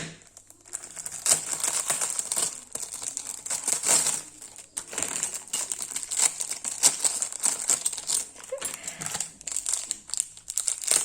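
Packaging crinkling in irregular rustles as it is handled, with a short pause about half a second in and another near the middle.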